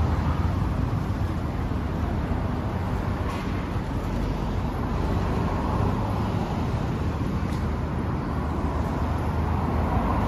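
Kawasaki KLX250's single-cylinder four-stroke engine, fitted with an FMF Powerbomb header, running steadily at idle.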